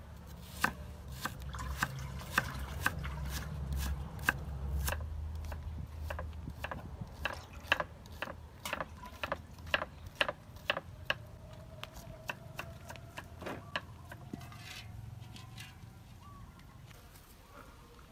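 Knife slicing shallots on a wooden chopping board: sharp knocks of the blade on the board, about two a second and irregular, thinning out over the last few seconds.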